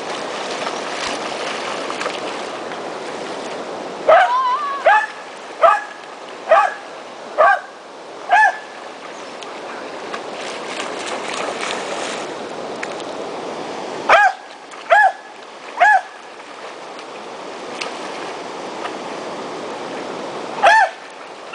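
Steady rush of a waterfall, with a run of six short, loud animal calls about a second apart starting some four seconds in, then three more a little past the middle and one near the end.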